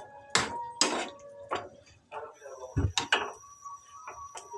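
A spatula knocking and scraping against a pan while squid adobo is stirred: about six sharp clacks at uneven intervals.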